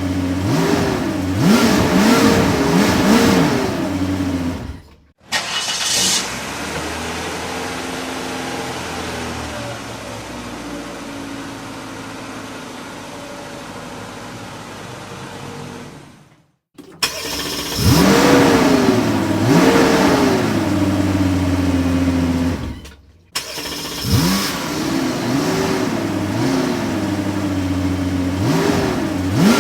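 Car engine revving in a series of blips, its pitch rising and falling several times. A steadier, quieter stretch of engine running fills the middle, and the separate clips are broken by three brief gaps of silence.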